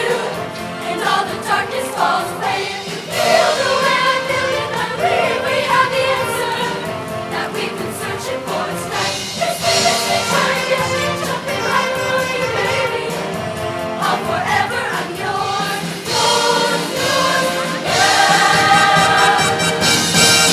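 Choir singing with a live band, voices over drums and instruments, swelling louder near the end.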